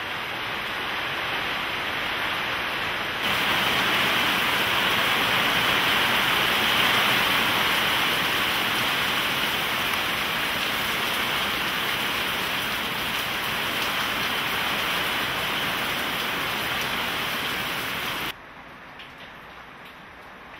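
Heavy rain falling, a steady hiss that grows louder about three seconds in, then drops suddenly to a much softer rain sound near the end.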